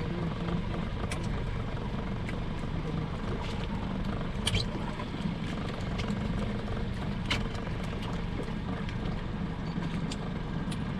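A fishing boat's engine running steadily with a low, even hum, and several sharp clicks and knocks over it.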